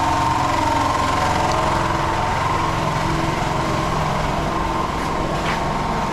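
A small engine running steadily, with a constant hum.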